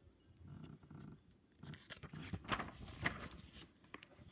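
Picture-book pages being turned by hand: soft, irregular paper rustling and crinkling from about one and a half seconds in until near the end.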